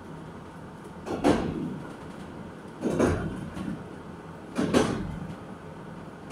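Railway carriage wheels clacking over rail joints on jointed track while the train runs at steady speed: a loud knock recurs about every 1.7 seconds, four times, over a steady rumble of running.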